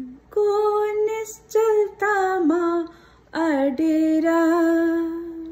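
A woman singing unaccompanied: a slow melody in several short phrases, ending in a long held note.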